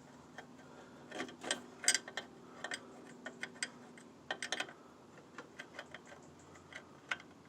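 Irregular metallic clicks and light taps of a ratchet with a 7/16 crow's-foot wrench working the rear brake line's flare nut into the master cylinder, loudest about two seconds in.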